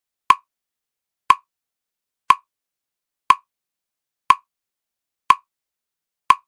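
A single sharp metronome-style click repeating exactly once a second, seven times, with silence between the clicks.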